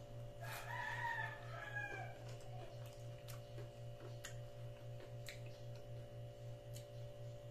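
A rooster crowing once, about two seconds long, starting half a second in, its pitch sliding down at the end. Scattered wet mouth clicks of hand-eating and chewing, over a low hum that pulses about four times a second.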